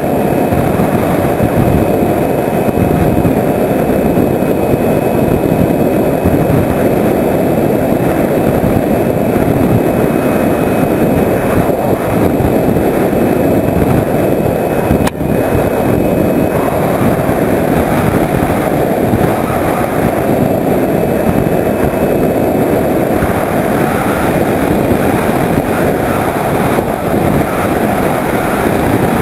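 In-flight sound from a Skyhunter RC plane's electric pusher motor and propeller, heard from the camera on board, with heavy wind rush. A faint steady high whine runs until about halfway through, where a single sharp click comes as the parachute is released.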